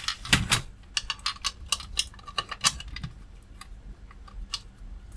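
Irregular light clicks and taps as a small circuit board, its potentiometer and its wires are handled and fitted against the unit's front panel to be bolted back on. The clicks are thickest in the first few seconds and thin out towards the end.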